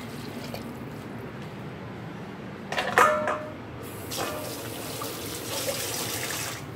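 A stainless steel bowl clanks against the kitchen sink about three seconds in, with a short metallic ring. Then tap water runs into the sink over the bowl of cut pumpkin and stops near the end.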